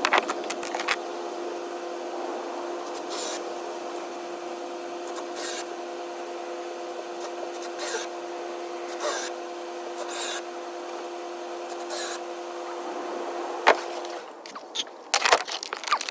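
Lumber offcuts and tools being picked up and set down during cleanup: scattered wooden knocks and scrapes every second or two, over a steady hum that stops near the end.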